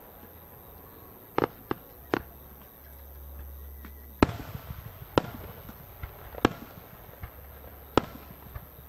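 Aerial firework shells by Wakamatsu Enka bursting: a quick cluster of sharp distant bangs about a second and a half in, then single louder reports roughly every second or so from about four seconds in.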